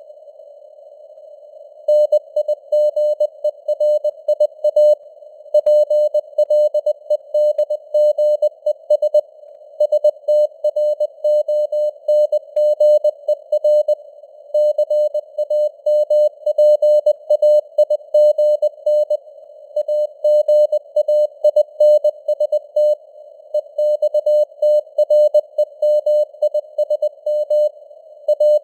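Morse code (CW) sent at 20 words per minute as a single steady beeping tone keyed in dots and dashes, over a narrow band of simulated radio receiver noise. The first two seconds are a pause in the keying with only the hiss.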